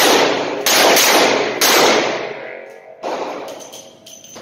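Gunshots from a Ruger SP-101 .357 Magnum revolver, echoing in an indoor range: two loud shots about a second apart, then a quieter bang about three seconds in.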